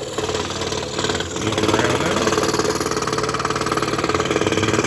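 Scroll saw running steadily, its fine 2/0 Flying Dutchman puzzle blade cutting through 7 mm five-ply Finland birch plywood.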